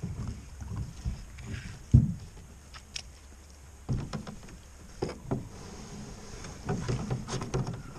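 Irregular knocks and thumps on a canoe hull as the canoe is handled, with one sharp knock about two seconds in.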